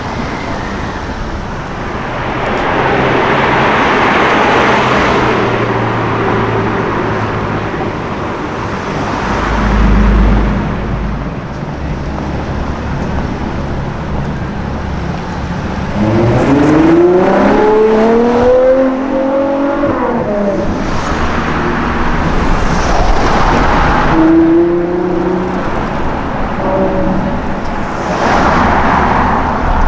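City street traffic with several cars driving past one after another. About halfway through, one car's engine revs up, its pitch rising and then falling away.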